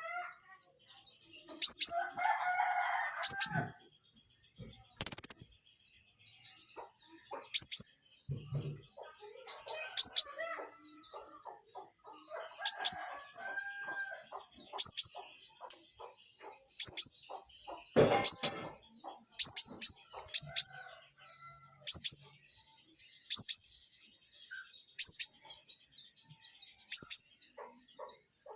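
Pentis raja, a small flowerpecker, singing: a string of short, very high, sharp notes repeated every second or two, with softer chattering between them.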